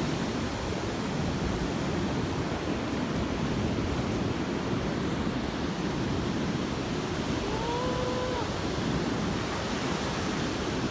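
Ocean surf washing onto a beach: a steady, even rush of waves.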